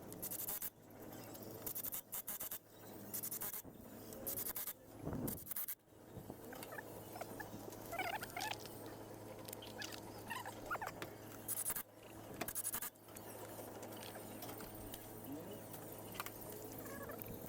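Engine reassembly noises: repeated short clatters and bursts of noise from hand work on the engine, over a steady low hum. Faint chirps come and go in the background.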